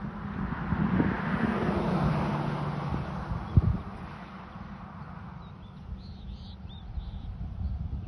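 A vehicle passing by, its rushing engine and tyre noise swelling and fading over about four seconds, the engine's pitch dropping as it goes past. A sharp knock comes about three and a half seconds in, and a few short bird chirps follow near the end.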